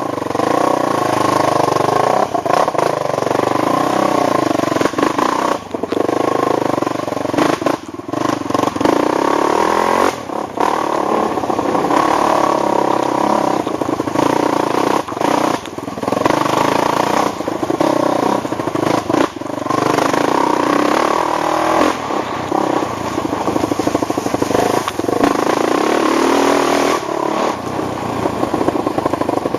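ATV engine running hard under throttle, easing off briefly every few seconds, with knocks and rattles over rough ground.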